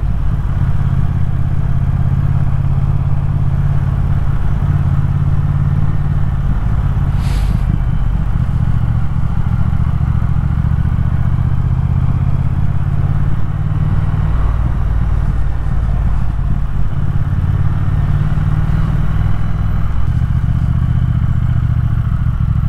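Triumph Thruxton R's 1200 cc parallel-twin engine running steadily at low revs as the motorcycle rides at town speed, heard from a camera mounted on the bike. A brief hiss comes about seven seconds in.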